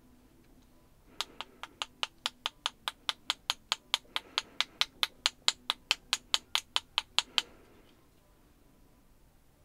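A weighted metal scoring tool tapping rapidly on a paintbrush handle, about five sharp ticks a second for some six seconds, flicking ink splatters off the brush. The tapping starts about a second in and stops a couple of seconds before the end.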